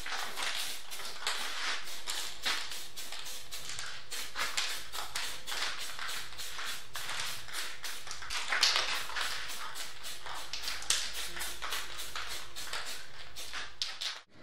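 Aerosol spray paint can hissing in many short, quick bursts, a few times a second.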